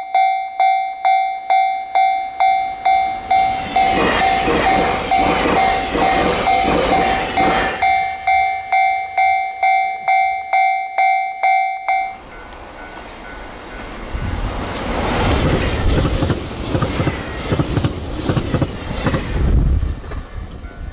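Level-crossing warning bell ringing about twice a second while a JR Hokkaido 789 series 1000 limited-express train passes at about 100 km/h with rail clatter. The bell stops suddenly about twelve seconds in, and a second 789 series express passes at about 94 km/h with heavy low rumble and wheels clattering over the rail joints.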